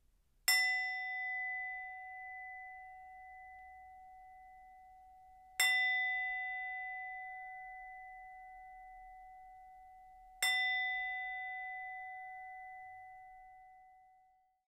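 Meditation bell struck three times, about five seconds apart; each strike rings out with a clear tone and fades slowly.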